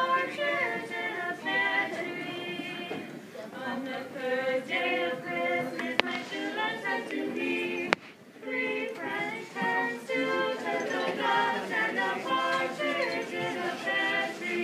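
High school a cappella choir singing in harmony, several voices holding and changing notes together without instruments. Two sharp clicks cut through, about six and eight seconds in, and the singing dips briefly after the second.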